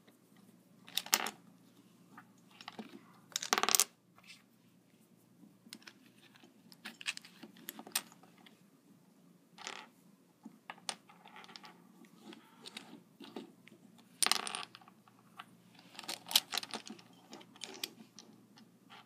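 3D-printed plastic puzzle-cube pieces clicking and clattering as corner pieces are dropped into the cube and picked from the pile on a wooden table. Irregular clicks throughout, with louder knocks about a second in, around three and a half seconds, and again around fourteen and sixteen seconds.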